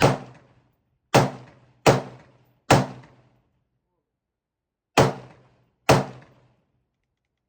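Six gunshots from a braced AR pistol, fired one at a time at an uneven pace: one at the start, then three in quick succession, a pause of about two seconds, and two more. Each shot ends in a short ringing echo.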